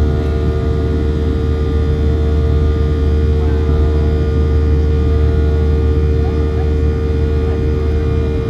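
Steady cabin noise aboard a Boeing 737-700 with its CFM56-7B jet engines running: a low rumble with a constant droning hum above it.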